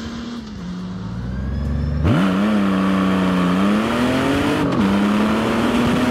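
Honda GL1800 Goldwing's flat-six engine pulling as the bike rides along, first heard from the roadside, then from the rider's seat with wind noise. The engine note climbs, drops suddenly at an upshift about three-quarters through, and climbs again.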